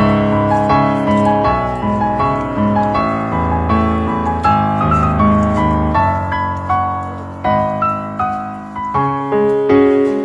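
Background piano music: a gentle melody of single notes, each struck and fading, over a lower accompaniment.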